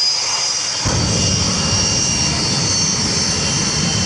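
Jet car's turbine engine running with a steady high-pitched whine. About a second in, a loud, deep rumble comes in suddenly and holds, as the car throttles up with a long flame from its exhaust.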